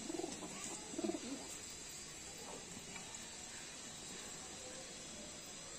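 Pigeon cooing: two short, low coos within the first second and a half, then only faint steady background.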